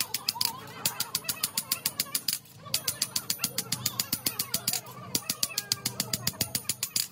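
Small hammer striking the steel hub of a Mercedes truck clutch disc in quick, even blows, about six a second, with a sharp metallic ring. The run breaks briefly about two and a half seconds in and again near five seconds.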